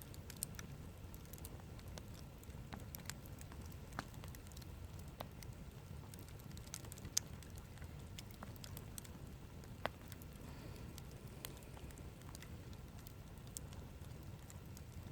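Campfire crackling: irregular sharp pops and snaps of burning wood over a low steady rumble.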